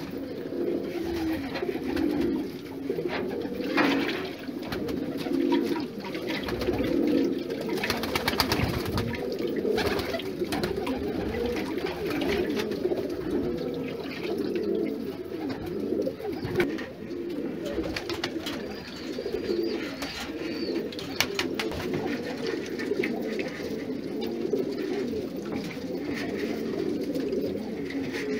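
Domestic pigeons cooing continuously, several birds overlapping in a steady low, warbling murmur.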